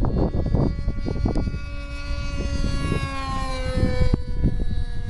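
Radio-control .40-size Piper Cub model airplane flying overhead, its engine drone sliding slowly down in pitch, over a gusty low rumble of wind on the microphone.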